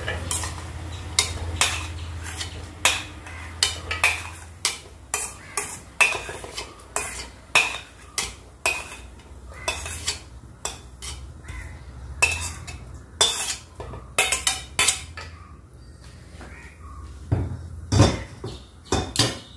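Steel slotted ladle knocking and scraping against a steel kadai, about one or two clinks a second, as fried cashews are scooped out of hot ghee and tipped into the poha.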